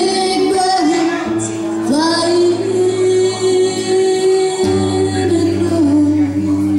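A woman singing a slow melody with long held notes while accompanying herself on acoustic guitar; the guitar's low notes change about a second and a half in and again after four and a half seconds.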